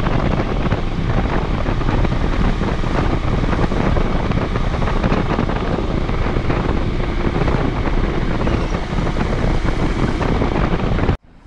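Heavy wind buffeting on the microphone of a moving motorcycle, with the Honda CD125 twin's parallel-twin engine running underneath. The sound cuts off abruptly at the very end.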